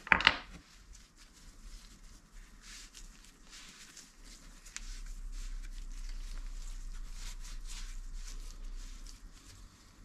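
Hand work on a Classic Mini front swivel hub: a sharp knock just after the start, then faint rubbing, scraping and light clicks as the parts are handled. A low hum comes in a little before halfway.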